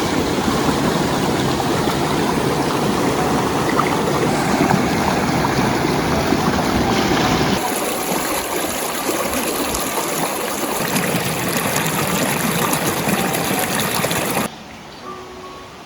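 Running stream water, a steady rush of flowing water. About seven and a half seconds in it changes abruptly and loses its low rumble, and near the end it drops much quieter.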